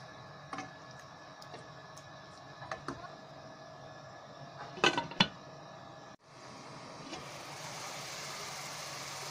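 A wooden spoon taps against a nonstick pan a few times, then a glass lid clatters down onto the pan with two knocks about five seconds in. After a brief break, the minced meat simmering in water under the lid gives a steady hiss, over a steady low hum.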